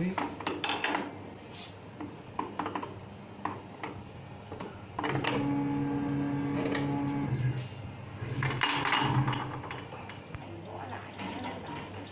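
Metal clinks and clicks of open-end wrenches on a CNC router spindle's collet nut as a cutting bit is tightened. About five seconds in a steady hum with a clear tone comes in for a few seconds.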